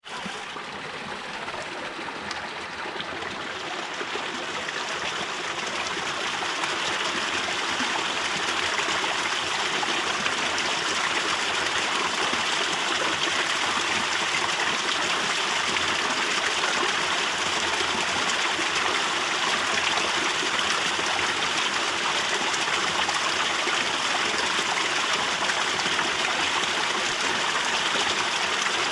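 Falling water from a small canyon waterfall drip, a steady splashing trickle that fades in over the first several seconds and then holds even.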